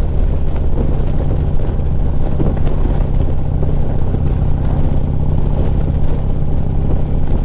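Harley-Davidson Street Glide's V-twin engine running steadily at cruising speed on the road, heard from the rider's seat.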